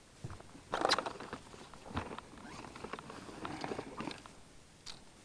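Handling noises on a boat deck: scattered light knocks, clicks and rustling, the sharpest clatter about a second in and a dull thump about two seconds in.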